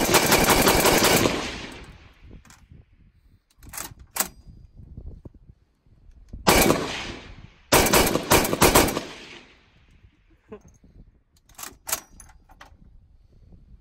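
Soviet DP-series pan-fed light machine gun, chambered in 7.62×54mmR, firing full-auto. One long burst ends about a second and a half in, two more bursts come close together about halfway through, and a few shorter sharp cracks fall in between and near the end.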